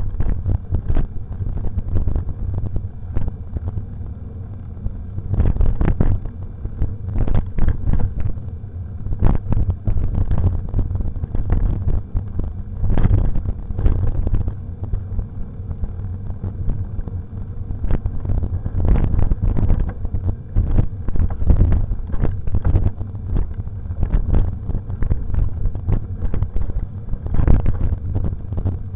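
Mountain bike riding over a dirt trail, heard as a heavy low rumble of wind buffeting the action camera's microphone, with frequent knocks and rattles as the bike jolts over roots and bumps.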